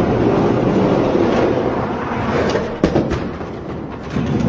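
Die-cast toy monster trucks rolling down an orange plastic Hot Wheels track, a steady rumble of wheels on plastic, with a few sharp knocks about three seconds in.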